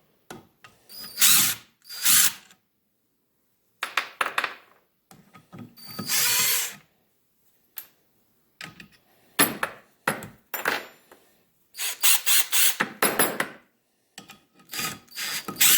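Tool loosening and running out the 13 mm clutch pressure-plate bolts on a VW Type 1 1600cc engine, in about eight short bursts with pauses between them.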